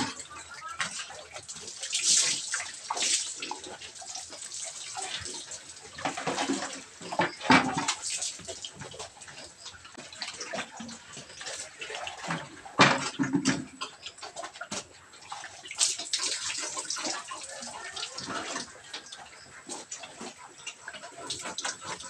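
Water poured from a dipper, splashing over a sow and onto a concrete pen floor in repeated splashes at irregular intervals.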